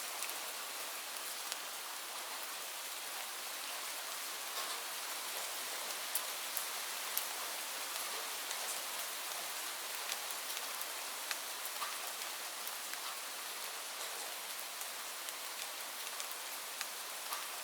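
Steady rain falling, a constant hiss with scattered individual drops tapping on surfaces.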